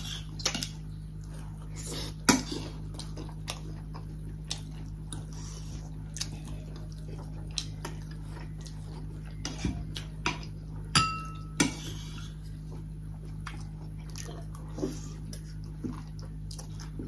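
Cutlery clicking and scraping on plates and bowls at a meal, in scattered light clicks, with one ringing clink about eleven seconds in. A steady low hum runs underneath.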